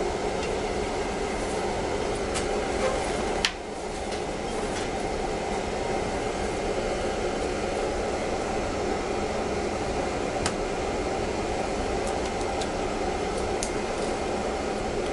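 Steady mechanical running noise with one sharp click about three and a half seconds in, after which it goes on a little quieter.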